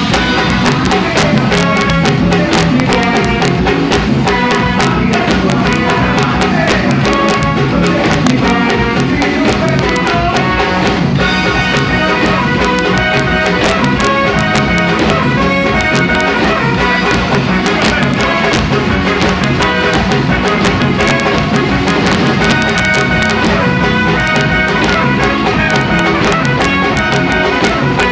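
Live band playing loud music: drum kit, electric guitar and keyboard.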